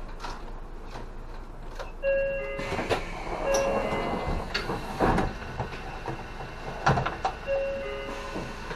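City bus front door closing at a stop: an electronic warning beep sounds in short pulses several times while the door mechanism clunks twice as the door shuts, over the bus's idling engine.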